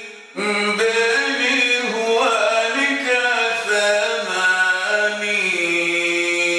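A man chanting a poem in Comorian in a slow melodic line, taking a short breath just after the start and holding one long note through the second half.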